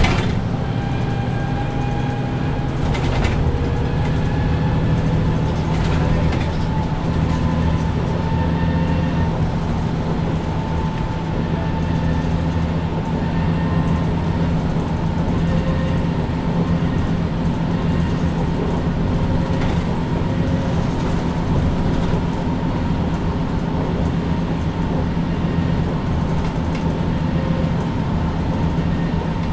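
A 2020 MAN Lion's City Ü (A20) city bus under way: a steady low drone from the diesel engine and Voith automatic gearbox, with whining tones that drift slowly up and down in pitch.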